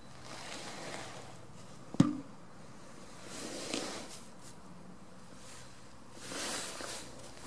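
Soft rustling and shuffling of goats moving in straw against cloth, with one sharp knock about two seconds in.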